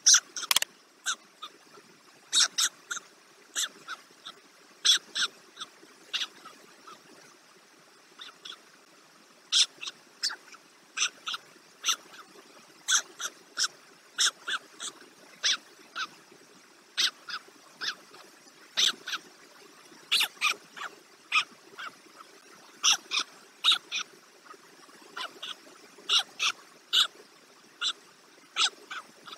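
White stork chicks calling from the nest: short, high cheeps repeated at an irregular pace, sometimes in quick pairs or small runs.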